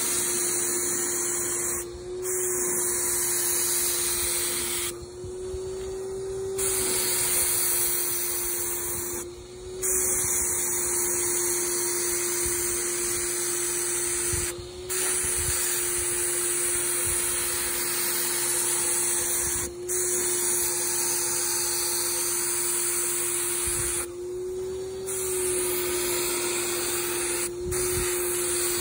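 Graco HVLP sprayer's turbine running with a steady whine, and air hissing through the spray gun. Every four or five seconds the hiss drops out briefly between spray passes, and the whine rises a little in each pause.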